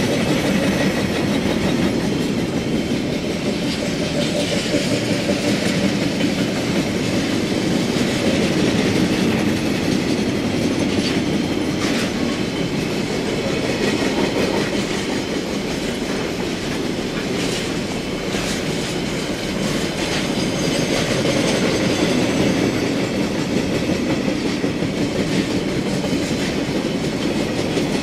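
Container wagons of a freight train rolling past, a steady noise of steel wheels running on the rails, with a few brief sharp clicks partway through.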